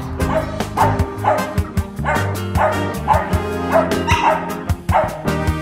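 A dachshund barking repeatedly, about twice a second, over background music with a steady beat.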